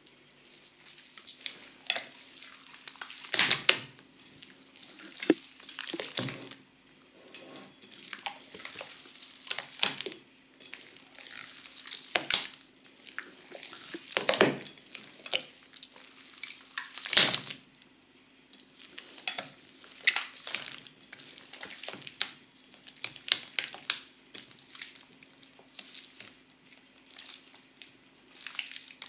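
Hands squeezing, stretching and pressing a large, wet guar-gum slime, making irregular squelches, crackles and pops, with a few louder squelches several seconds apart.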